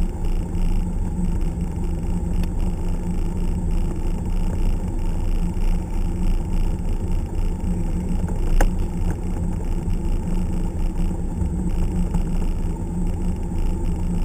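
Single-engine light aircraft's piston engine and propeller running at low, idle-range power, heard inside the cabin as a steady low rumble with an even hum. A single sharp click sounds a little past halfway.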